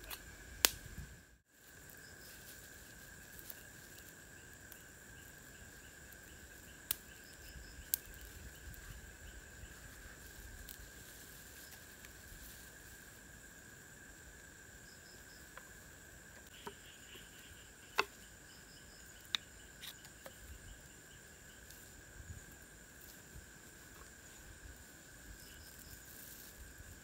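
Forest insects, crickets among them, trilling steadily at two pitches, one high and one very high, with short runs of pulsed chirping in the middle. A handful of sharp clicks stand out, the loudest near the start and about two thirds of the way through, and the sound briefly cuts out near the start.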